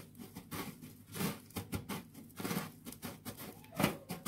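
Dry breadcrumbs rustling and crunching as fingers press and scoop them onto a shrimp in a metal tray, in a run of short, irregular scrapes.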